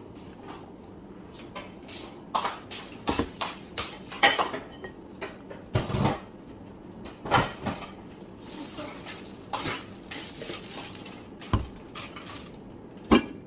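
Close-up eating sounds: bites and chewing of crispy breaded fried food, mixed with irregular sharp clicks and clinks of tableware.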